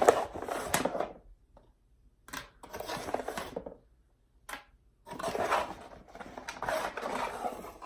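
Handling noise from a small plastic speaker and its box packaging: four bursts of rustling and light clattering, with short quiet gaps between them, the longest near the end.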